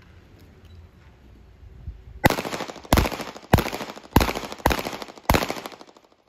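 Six pistol shots fired in quick succession, about two-thirds of a second apart, each with a short echo trailing off. This is a six-shot string fired at a moving target.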